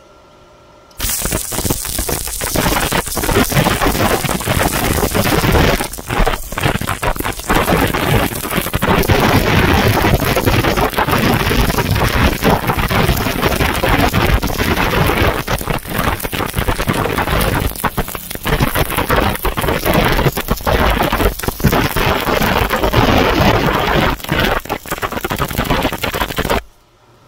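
Stick (MMA) welding arc crackling steadily as a coated rod electrode runs a fillet weld joining ribbed rebar to a flat steel bar. The arc strikes about a second in and cuts off abruptly shortly before the end.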